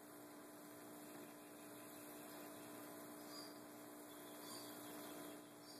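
Near silence: room tone with a steady electrical hum and faint hiss.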